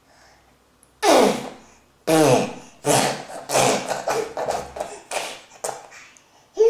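A baby's excited vocalising: a loud cry falling in pitch about a second in, then a run of short, breathy squeals and babbling, about three a second, fading toward the end.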